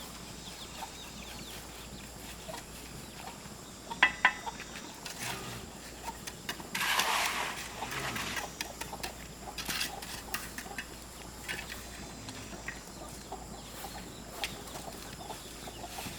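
Chickens clucking, with a few sharp knocks about four seconds in and a short rush of noise about seven seconds in.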